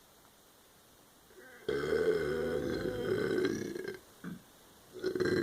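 A person burping loudly: one long, drawn-out burp of about two seconds that starts abruptly, then a short sound, and a second burp starting near the end.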